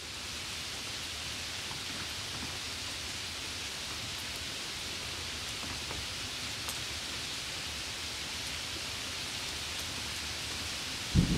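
Steady, even hiss of falling water, unchanging throughout. A louder low rumble breaks in at the very end.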